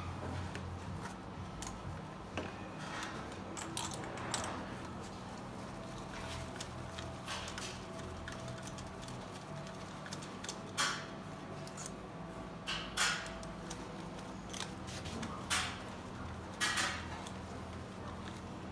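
Light workshop handling noise: about half a dozen sharp clicks and small knocks of tools and fittings being moved around the engine between compression-gauge readings, over a steady low hum.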